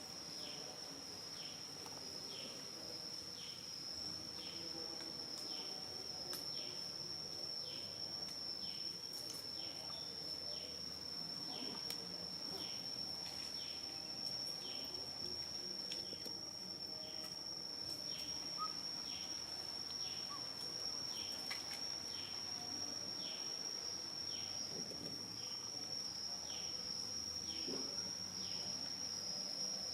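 Insects calling in a steady, even high-pitched drone, with a short falling chirp repeating about every two-thirds of a second.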